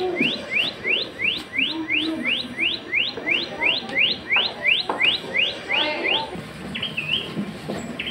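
Recorded rufous paradise flycatcher call played through an exhibit's loudspeaker: a rapid series of short rising whistled notes, about three a second, for some six seconds. A couple of separate hooked notes follow near the end.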